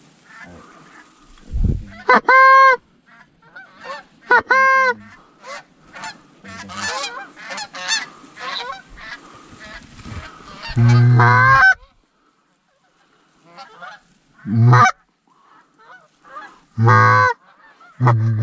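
Canada goose honking: two loud drawn-out honks, then a quick run of short clucks and honks, then three more loud, lower honks spaced a few seconds apart.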